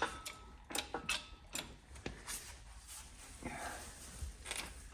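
Irregular light metallic clicks and clinks of steel parts and tools as the last gear cluster is worked off a Muncie four-speed transmission's shaft in a small press.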